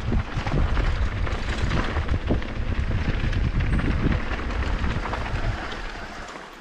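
Downhill mountain bike descending a rough dirt trail: wind buffeting the microphone and a steady rumble of tyres on loose stony ground, with frequent knocks and rattles from the bike over the bumps. It dies down toward the end as the bike slows.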